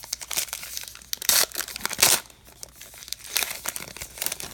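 Wrapper of a 2019 Topps Allen & Ginter baseball card pack being torn open and crinkled in the hands, in uneven crackling bursts, the loudest about one and a half and two seconds in.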